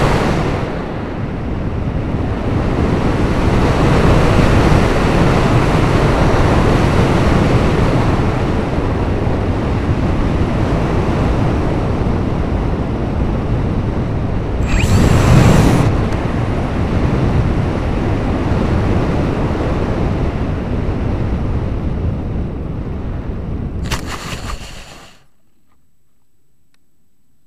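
Rushing airflow over the onboard camera's microphone on a Hobbyking Dynamic-S RC plane in flight, swelling louder about halfway through. About 25 seconds in it cuts off suddenly as the plane comes to rest in the grass, leaving only a faint hum.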